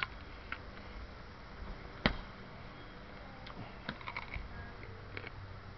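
Scattered light clicks and knocks, a sharper one about two seconds in, over a low rumble: handling noise as a handheld camera is carried along.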